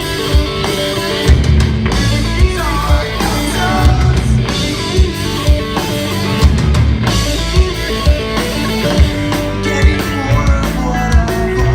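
Rock band playing a pop-punk song: a steady drum beat under electric guitar and sung vocals.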